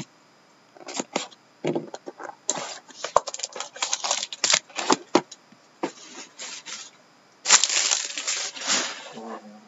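Plastic shrink-wrap crinkling and tearing as it is stripped off a sealed trading-card box, in scattered clicks and crackles. Near the end comes a louder rough rustle lasting about a second and a half, as the box is opened and its foil-wrapped pack comes out.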